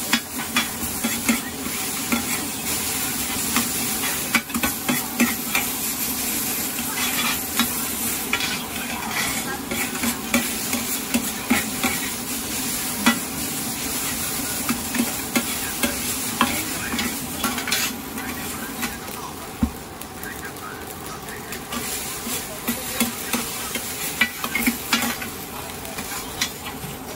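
Food sizzling in a wok while a metal spatula scrapes and knocks against the pan in quick, irregular strokes as it is stir-fried. The sizzle eases a little about two-thirds of the way through.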